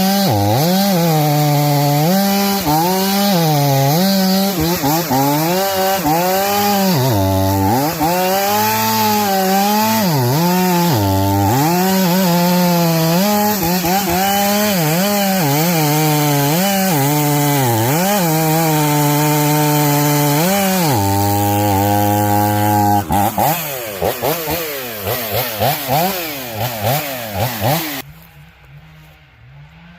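Two-stroke chainsaw at full throttle cutting through wood, its engine speed dipping again and again as the chain bites. About 23 seconds in it breaks into short revs, then the sound cuts off suddenly near the end.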